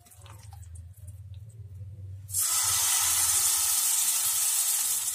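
Green bottle-gourd and spinach pancake batter hitting hot vegetable oil in a greased pan: a loud sizzle bursts in suddenly about two and a half seconds in and keeps going steadily. Before it there is only a faint low hum.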